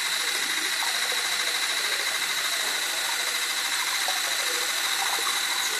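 Steady motor hum with a constant high whine, the pitch and level unchanging throughout.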